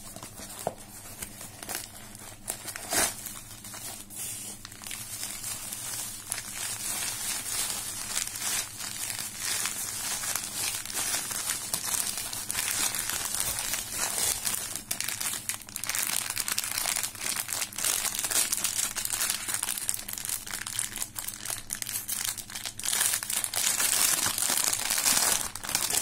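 Packaging crinkling and tearing as a parcel is unwrapped by hand: the brown paper mailer is pulled open, then bubble wrap and a plastic pouch rustle and crackle. There is one sharp crack about three seconds in, and the crinkling grows louder near the end.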